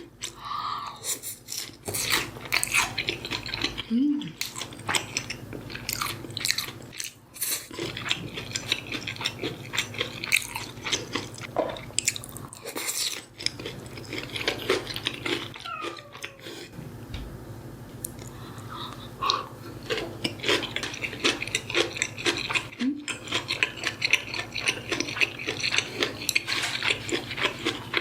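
Close-miked eating: chewing and crunching mouthfuls of food, with dense irregular crackles and wet mouth clicks, and a few short hums in between.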